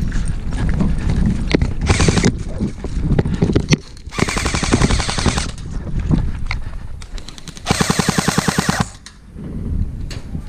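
Airsoft guns firing full-auto bursts, a fast rattle of roughly fifteen to twenty shots a second. There are three bursts: a short one about two seconds in, a longer one at about four seconds, and another near eight seconds.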